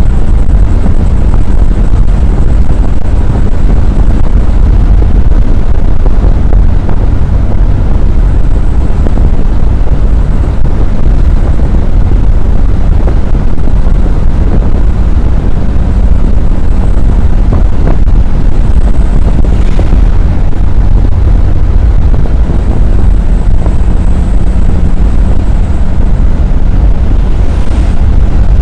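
Minibus driving at highway speed: a loud, steady low rumble of engine, road and wind noise.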